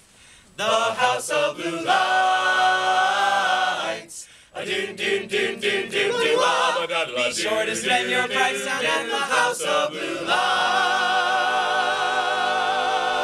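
Male a cappella group singing in close harmony, closing a song: after two brief breaks, the voices settle about ten seconds in on a long held final chord with vibrato that cuts off near the end.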